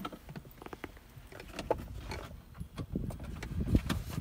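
Fleece clothing rubbing and rustling close against the microphone, louder in the second half, with scattered light clicks from a small ratcheting wrench loosening the radio's 8 mm mounting screws.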